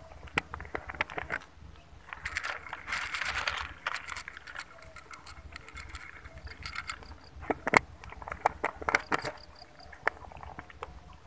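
Dry cat kibble rattling in a plastic container and pattering into an aluminium foil tray: a string of sharp clicks and crackles, thickest about two to four seconds in and again near the end.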